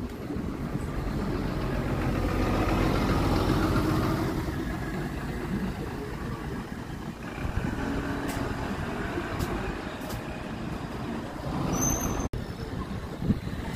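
Keio non-step city bus driving past close by and pulling away, its diesel engine rumble swelling about three seconds in, then fading. A few faint high squeaks and a short high squeal come near the end.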